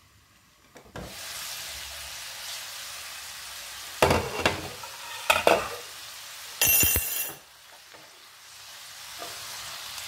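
Broccoli and mushrooms sizzling in a frying pan once the lid comes off, about a second in. In the middle a spatula knocks and scrapes against the pan a few times as the vegetables are stirred, with a louder scrape just after.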